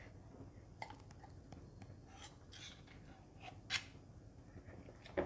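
Steel spoon scraping thick besan dough out of a plastic bowl and knocking against a steel sev press as the press is filled: a few faint scrapes and clicks, the sharpest about three and a half seconds in.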